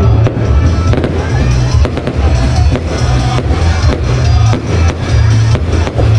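Aerial fireworks bursting in a rapid series of sharp bangs, over loud music with a heavy bass line.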